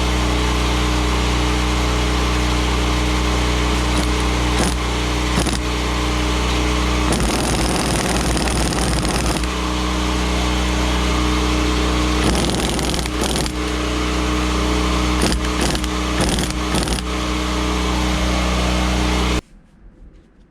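A motor running steadily with an even hum, cutting off suddenly near the end, with several short bursts of a power tool running on top, tightening the new nylock nut on the hydraulic pump's drive gear.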